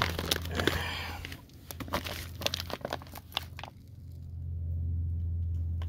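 Cardboard firework cake boxes being handled and moved about, rustling, crinkling and knocking lightly for the first three and a half seconds. A low steady hum underneath grows stronger in the last two seconds.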